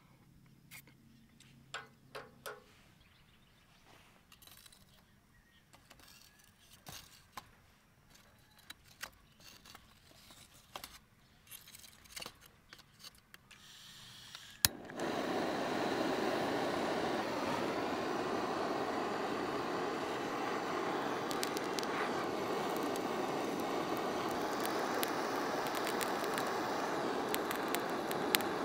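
Scattered light clicks and knocks, then about halfway through a sharp igniter click as a butane torch fitted to a gas canister lights, followed by the steady loud hiss of its flame aimed at charcoal in a small grill, which cuts off suddenly at the very end.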